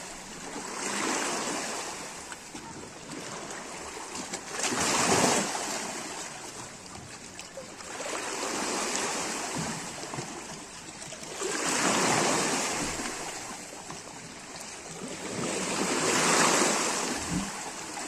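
Sea waves breaking and washing on the shore, swelling and fading in a slow rhythm with about five surges, one every three to four seconds.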